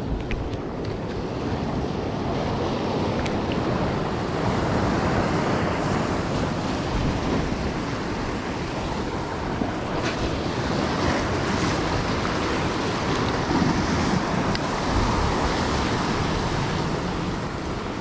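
Ocean surf washing steadily on the shore, with wind buffeting the microphone.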